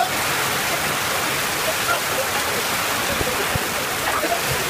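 Heavy rain pouring steadily onto a paved surface, an even, unbroken hiss.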